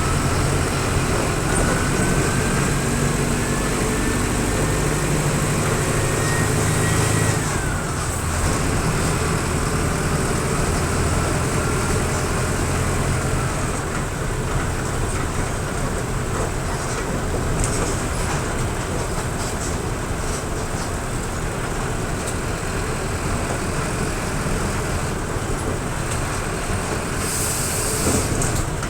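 Mercedes-Benz OF-1722M bus's diesel engine pulling under acceleration with a whistle that rises in pitch along with the engine. About seven seconds in, the whistle and engine note drop sharply, then the engine pulls again with a fainter rising whistle. A short hiss comes near the end.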